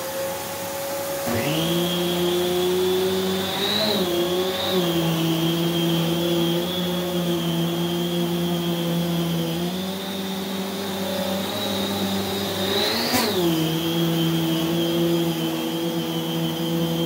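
Prolux X8 Elite backpack vacuum running on carpet with its EBK360 power nozzle, at full suction with the bleed valve closed. It makes a steady hum with a high whine over it. About a second in, further tones join in. The pitch wavers briefly around four seconds, and near the end it rises and falls once.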